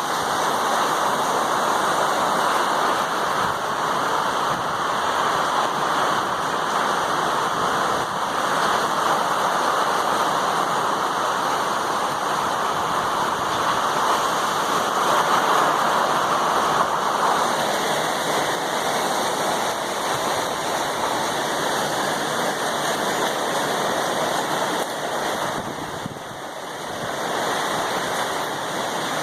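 Hurricane Irma's heavy rain pouring down with gusting wind: a steady, dense rushing that eases briefly near the end before picking up again.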